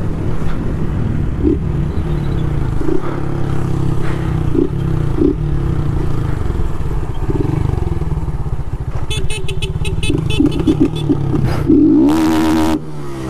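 Honda CG 160 Start's single-cylinder four-stroke engine running at low revs through an open tin aftermarket exhaust with no air filter, pulsing unevenly as the bike rolls slowly. A rapid ticking rattle comes in about nine to eleven seconds in, and there is a brief louder burst near the end.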